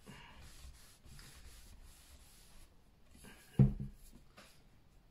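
A cloth rubbing boiled linseed oil into a wooden axe handle: faint, repeated rubbing strokes, with one brief louder thump about three and a half seconds in.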